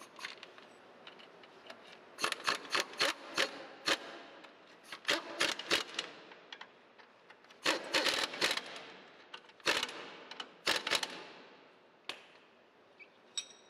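Impact wrench running in about five short bursts of rapid clicks as it drives in the mounting bolts of a sweeper's broom bearing plate.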